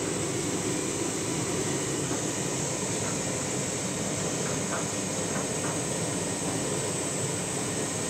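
Candy front-loading washing machine running with a drum full of foam, a steady churning water-and-machine noise. The machine is in a suds lock, held back by excessive suds.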